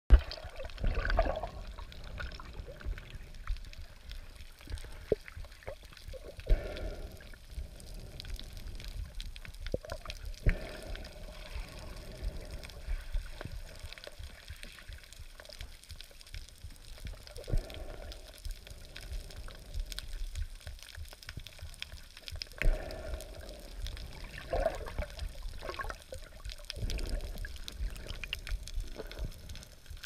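Scuba diver breathing through a regulator underwater: exhaled air bubbles out of the regulator in a gurgling burst every few seconds, with scattered small clicks between breaths.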